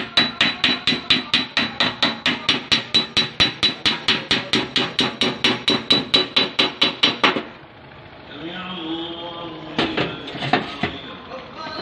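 A body hammer beating the steel fender of a 2018 Kia Sportage, a cold dent repair with no heat. The blows are quick and even, about four or five a second, and each rings like metal; they stop about seven seconds in. A few separate knocks follow near the end.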